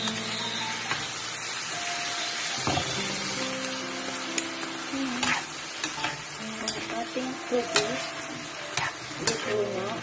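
Chicken, bean sprouts and mixed vegetables sizzling in a nonstick frying pan while being stir-fried with a metal spatula. A steady frying hiss runs under scattered scrapes and taps of the spatula against the pan.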